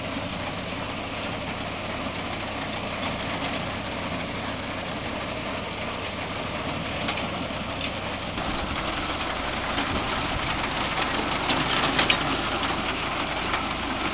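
Tractor engine running with a PTO-driven reaper binder working. The noise grows louder about halfway through, with a few sharp clicks near the end.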